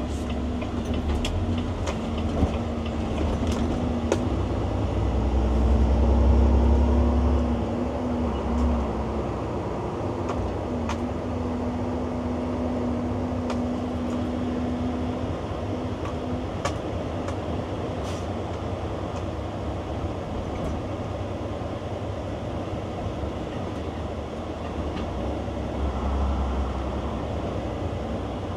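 Semi truck's diesel engine and road noise heard from inside the cab while driving slowly: a steady low rumble with a held engine note that swells about six seconds in, and scattered light clicks and rattles.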